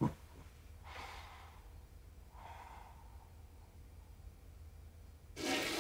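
Quiet breathing with two soft sighing exhales, about one second and two and a half seconds in. A louder rush of noise starts just before the end.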